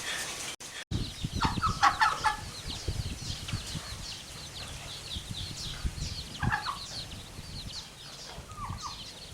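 Chickens clucking around food, a few clucks about a second and a half in, again after six seconds and near the end, over a steady run of short high falling chirps.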